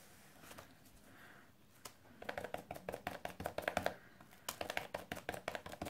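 Quick light taps of a small glue applicator dabbing on a plastic craft mat and paper die-cuts, stippling glue on, several taps a second, starting about two seconds in with a short pause partway through.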